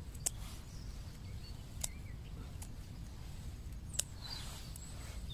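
Wind rumbling on the microphone outdoors, with four sharp clicks spread through and a few faint bird chirps.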